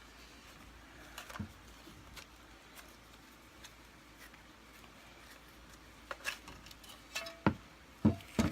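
Vacuum cleaner parts being handled during disassembly: scattered light clicks and taps, then several louder knocks of hard parts in the last two seconds.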